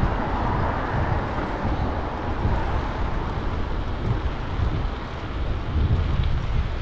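Steady rumbling background noise, with gusts of wind buffeting the microphone that swell and fade several times.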